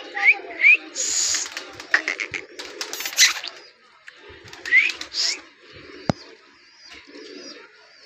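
Alexandrine parakeet calling: short rising squawks and harsh screeches in three clusters, near the start, about three seconds in and about five seconds in. A single sharp click comes about six seconds in.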